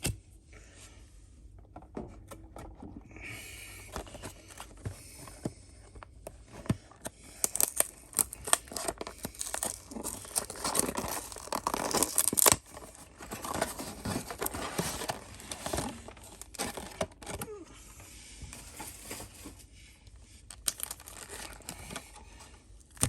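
Yu-Gi-Oh card packaging being torn open and crinkled by hand: irregular rustling, tearing and sharp crackles, heaviest through the middle stretch.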